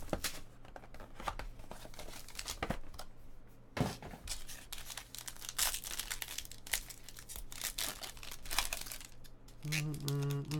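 Trading card pack wrappers and packaging crinkling and tearing, with irregular rustles and snaps as cards are opened and handled. Near the end a person hums a few held notes.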